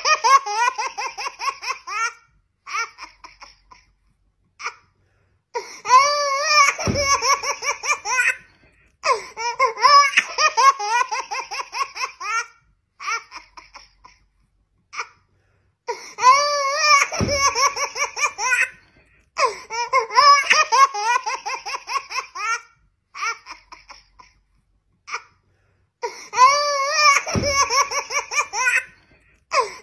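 Baby laughing: high-pitched giggles and belly laughs in bursts, with short pauses between them.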